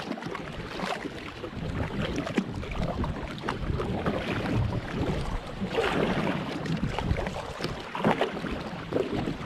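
Rain falling on a pond and on a plastic kayak, a dense patter of small drops, with a kayak paddle dipping and splashing into the water every second or two.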